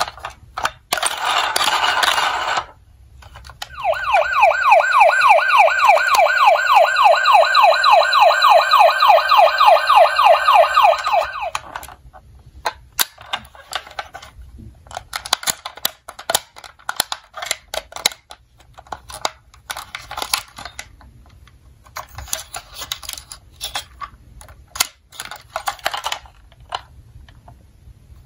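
A toy ambulance's electronic siren sounding a fast yelp, rapid rising sweeps repeated over and over for about eight seconds, starting a few seconds in. Before and after it, clicks, taps and rattles of plastic toy cars being handled.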